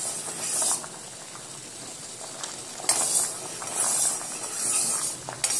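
Sugar syrup boiling hard in a steel pot, hissing and bubbling, with a metal spoon stirring through it and a few clinks against the pot. The syrup is being cooked only to a thin, gulab-jamun-style consistency.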